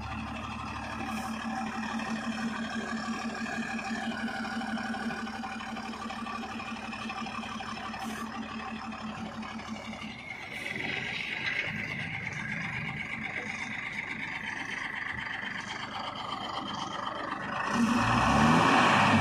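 Tata tipper truck's diesel engine running steadily while its tipper body is raised. The sound changes about ten seconds in and gets louder near the end, with a rise and fall in pitch.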